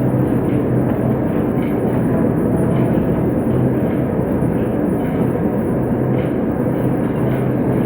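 Large metal planer running as it machines a 40-foot machine bed: steady mechanical noise with a constant low hum.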